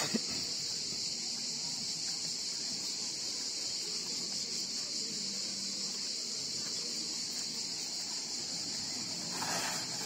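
Steady, high-pitched chorus of cicadas chirring, with one short knock right at the start.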